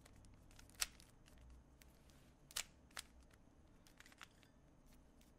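Plastic 3x3 Rubik's cube being turned by hand: faint clicking and rattling of the layers, with a few sharper clacks, one about a second in and two close together near the middle.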